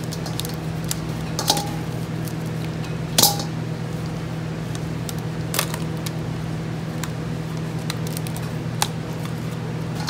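Cooked lobster shell pieces clicking and tapping, a few sharp clicks spread out with the strongest about three seconds in, as the lobster is sorted into claws and heads, over a steady low hum.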